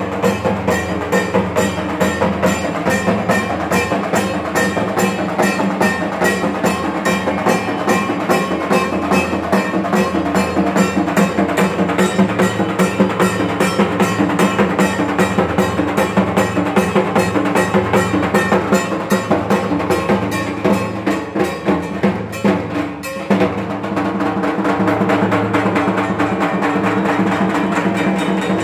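Evening aarti music: a fast, even drum beat over steady ringing tones. About 23 seconds in the beat breaks off and gentler, more tonal music carries on.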